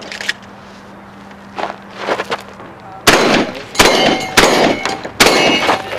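A shotgun fires four shots in quick succession, starting about halfway in, and steel targets ring after the hits. Before the shots there are a few light clicks of handling.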